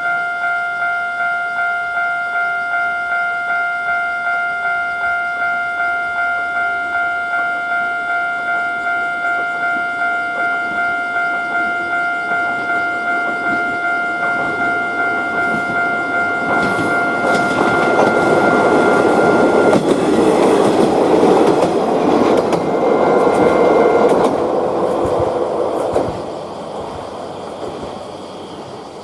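Japanese railway level-crossing warning bell ringing its rapid 'kan-kan' at about two strikes a second. A train then passes through the crossing, its rumble building to the loudest part past the middle and drowning the bell, then dropping off sharply near the end.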